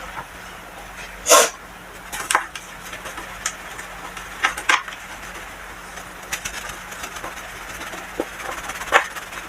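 Soft crunches of pressed baking soda being crushed: short, irregular crackles a second or so apart over a faint hiss, the loudest about a second and a half in.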